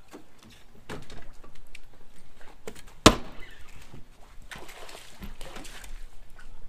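A single sharp knock about three seconds in, the loudest sound, then water splashing as a hooked bass fights at the side of the boat. Light knocks and rustles come from the angler moving on the deck.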